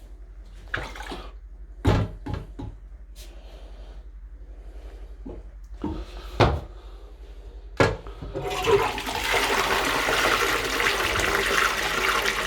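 A few sharp knocks, then a toilet flushing from about 8.5 s, with water rushing loudly into the bowl: a test flush of the just-unblocked toilet drain.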